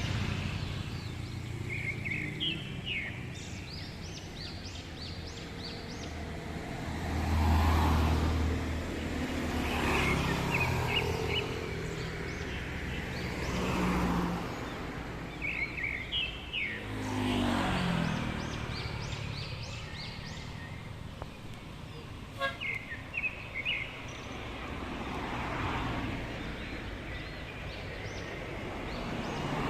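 Road traffic passing one vehicle after another, each swelling and fading as it goes by, the loudest about a quarter of the way in. Between the passes come short runs of quick bird chirps from the flock overhead.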